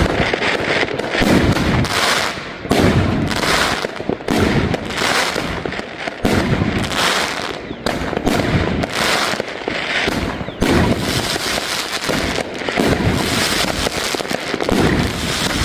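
Jorge 'Mordor' 30-shot 48 mm fireworks cake firing: heavy booming shots about once a second over continuous dense popping.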